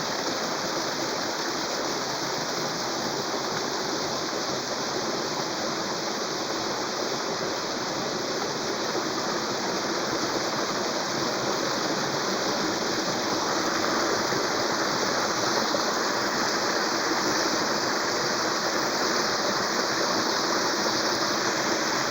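Steady rush of running water, growing slightly louder about two-thirds of the way through.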